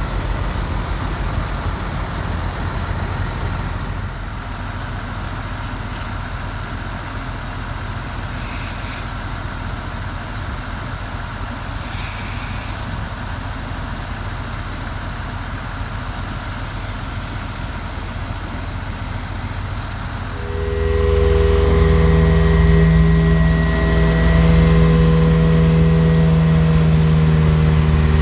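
2001 International 2574 Vac-Con sewer/vacuum truck running, its engine and water-jetting system going steadily. About 20 seconds in it steps up louder into a steady hum with a few held tones as the vacuum system runs.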